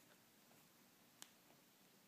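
Near silence: faint room hiss, with one soft click a little over a second in.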